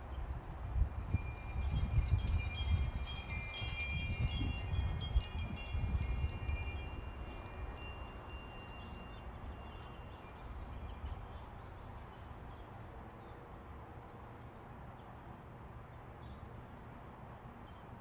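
Two metal-tube wind chimes ringing in a gust, a cluster of overlapping high tinkling notes that thins out and dies away after about ten seconds. A low rumble comes with the gust in the first half.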